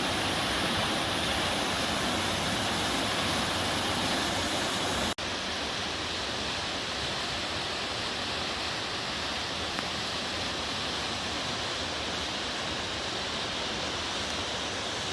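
Waterfall water pouring and splashing into a mountain stream, a steady full rushing. About five seconds in the sound drops out for an instant and comes back slightly less hissy, as if at a cut to another shot.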